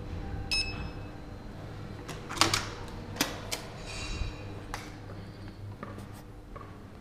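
A Gantner electronic access card reader gives a short beep, then a door latch clicks and the door is pushed open, with several sharp clicks and knocks.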